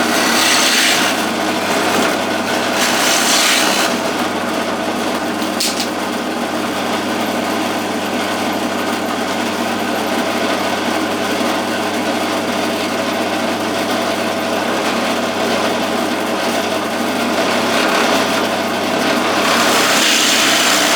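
Power drill running steadily, boring a blind hole into wood with a Forstner bit. The cutting noise swells for a few seconds near the start and again near the end.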